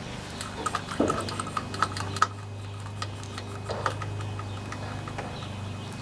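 Needle-nose pliers clicking and scraping as they grip and twist a stuck rubber fuel line off the fuel pump's fitting. A run of small, quick clicks, thickest in the first couple of seconds and sparser after, over a steady low hum.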